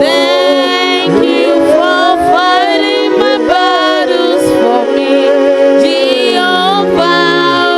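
Worship music: a voice singing a slow, gliding melody over steady held chords.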